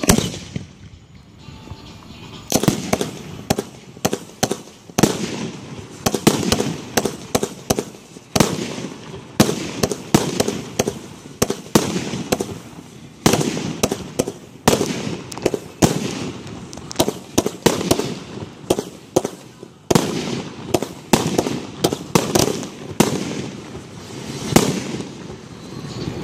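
Fireworks display: a rapid, dense barrage of aerial shell bangs and crackling that starts about two and a half seconds in, after a short lull.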